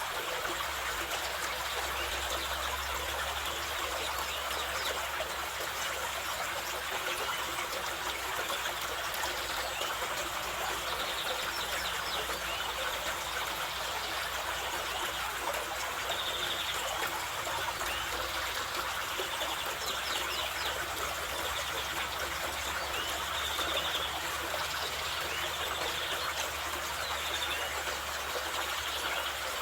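Carpathian mountain river rushing steadily over stones, with birds chirping briefly now and then above the water.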